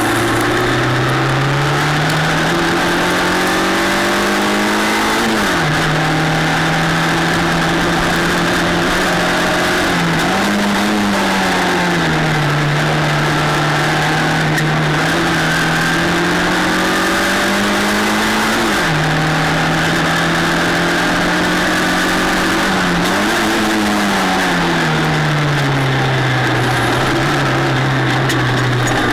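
Formula LGB F4 race car's engine running under racing load, with wind rush on the car-mounted microphone. The revs climb steadily and drop sharply on upshifts about five seconds in and again about two-thirds of the way through, with shorter rises and falls in between as the driver lifts and brakes into corners.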